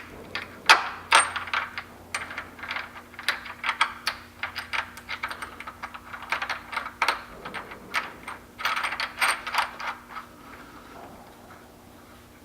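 Irregular metal clinks and clicks of tools and hardware being handled while a bench vise is mounted, many small sharp strikes that die away about ten seconds in.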